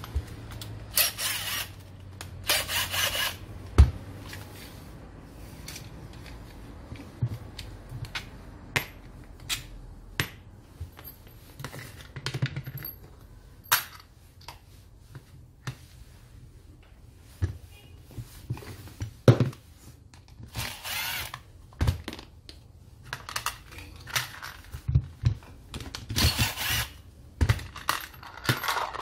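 Cordless impact driver run in several short bursts, backing screws out of an angle grinder's housing. In between come sharp clicks and clinks of screws and small parts dropped into a bowl and plastic tool parts being handled.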